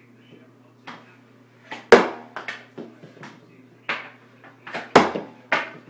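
Plastic mini hockey stick taking shots on a hard floor: a series of sharp clacks and taps from the stick blade, with two loudest smacks about two seconds in and about five seconds in. A faint steady hum sits underneath.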